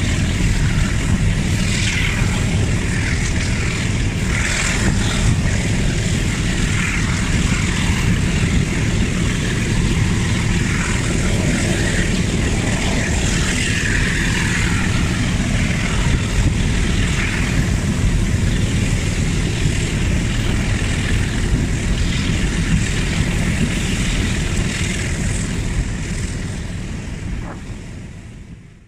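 RENFE class 321 ALCo diesel locomotive working hard up a gradient, its engine a loud, steady din heard from a window of the train, with heavy wind noise on the microphone. The sound fades out in the last few seconds.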